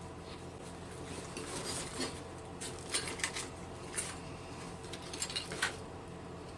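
Light metallic clicks and clinks of tools and metal parts being handled, in scattered clusters over a steady low hum.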